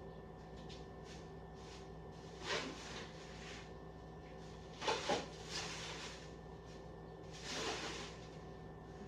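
Kitchen handling noises: a few short knocks and rustles, with two quick knocks close together about halfway through and a longer rustle near the end, over a steady low hum.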